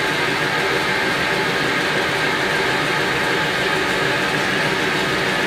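Spindle of a Hwacheon Cutex 160 CNC lathe running with no chuck fitted, held at about 2000 RPM. It makes a steady, even whir with a constant high tone.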